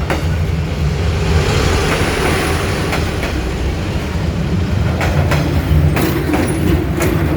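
Passenger train rolling past at close range: a steady low rumble with a hiss over it, and wheels clicking over rail joints, several times in the second half.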